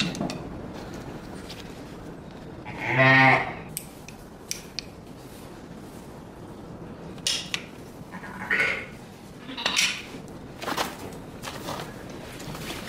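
Sheep bleating: one loud bleat about three seconds in, then a few fainter bleats, with scattered short clicks and knocks from handling in the pen.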